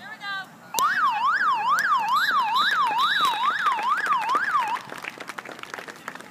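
An electronic siren starts suddenly about a second in and wails quickly up and down, about two and a half sweeps a second. It cuts off abruptly near the end.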